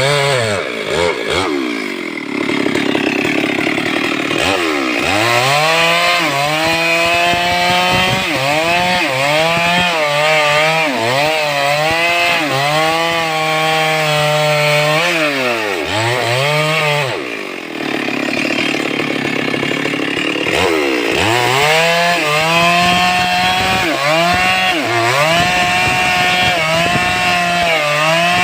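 Stihl 382 two-stroke chainsaw running at high revs, its pitch wavering, dropping twice to a low rumble when the throttle eases and climbing back up each time.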